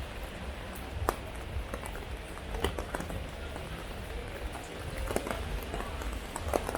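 Heavy rain falling steadily, with scattered sharp taps of individual drops landing close by.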